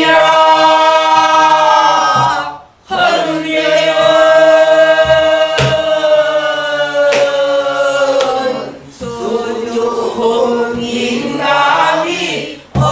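A group of voices singing pansori in unison, holding long wavering notes in phrases with short breaks for breath. A few strokes of a buk barrel drum are heard beneath the singing.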